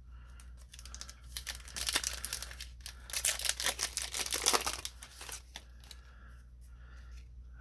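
Foil Yu-Gi-Oh booster pack wrapper being torn open and crinkled, a run of crackling rips that is loudest in the middle and dies down near the end.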